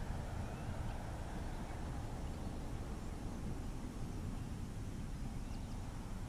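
Steady low wind rumble on the microphone, with no distinct event standing out.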